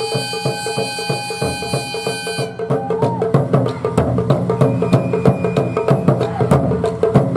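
Taiko drum ensemble playing a fast, driving rhythm of drum strokes. A high held note sounds over the drums for the first two and a half seconds or so, with shorter sliding notes later.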